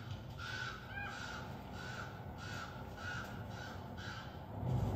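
Corvids calling from a nature documentary played through a TV: a run of about a dozen short, harsh caws in quick succession over a steady background hiss.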